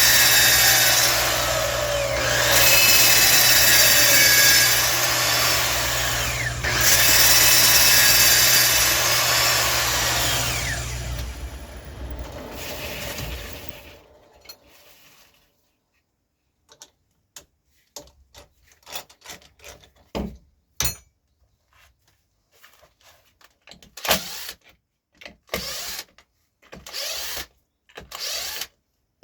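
Wood lathe running under a steady motor hum, with a loud scraping hiss as the spinning wood is worked. About 11 seconds in, the motor stops and winds down. Scattered light knocks and clicks follow.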